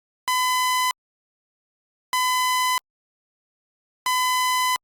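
Three harsh electronic beeps at one steady pitch, each about two-thirds of a second long and about two seconds apart. They are in the style of the end-of-message tones that close an Emergency Alert System broadcast.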